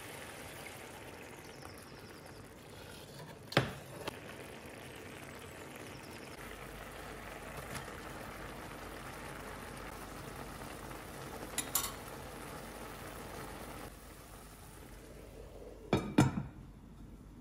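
Tomato sauce simmering and bubbling in an enamelled cast-iron pan, a steady hiss with a few light knocks. Near the end a glass lid clinks twice as it is set on the pan.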